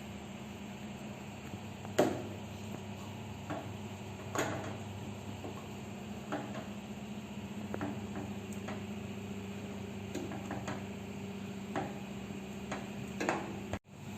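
A spoon knocking against a cooking pot now and then, about seven short clinks, the loudest about two seconds in, over a steady low hum.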